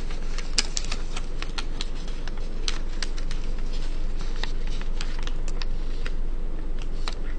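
Folded origami paper crinkling with many small sharp clicks as the pleated tail feathers are pulled out and spread by hand, over a steady background hiss and low hum.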